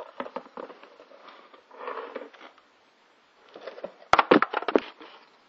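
Plastic food-storage containers being handled in a cardboard box. Scattered light knocks, a brief scraping rustle about two seconds in, then a loud cluster of sharp clacks a little after four seconds.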